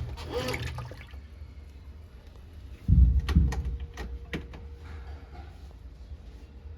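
Consul Maré top-loading washing machine agitating: water swishes in the tub, then a heavy low thump about three seconds in is followed by a few sharp clicks, with a faint steady hum after.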